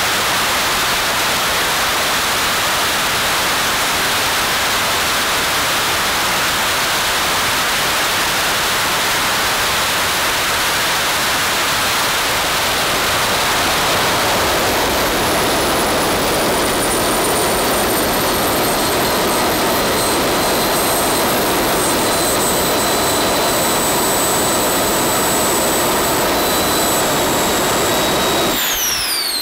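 Small RC turbojet engine burning diesel, running at full throttle with a steady roar. About halfway the throttle is cut and its high whine falls slowly as the turbine spools down. Near the end the roar stops suddenly and the whine drops fast as the engine shuts down.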